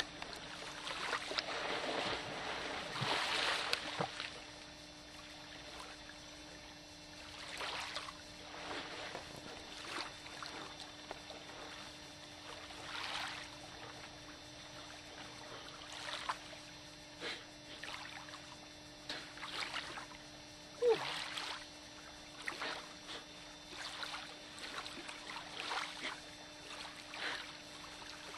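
Splashing in cold lake water as a swimmer ducks in, loudest for the first few seconds, then scattered softer splashes from swimming strokes and wading.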